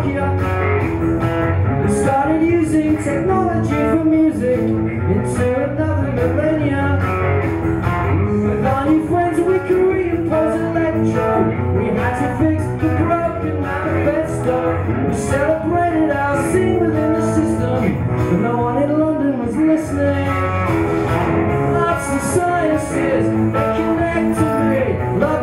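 Live rock song: a man sings into a microphone while playing an amplified Telecaster-style electric guitar.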